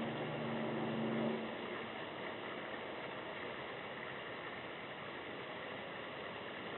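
A low, steady engine-like hum that fades out about a second and a half in, over a steady background hiss.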